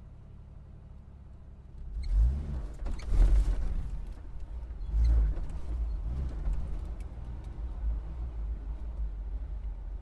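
Car engine running quietly, then from about two seconds in revving up in several swells and carrying on running louder.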